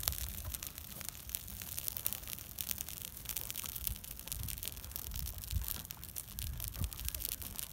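Dry grass burning, crackling with many quick irregular pops, over an uneven low rumble.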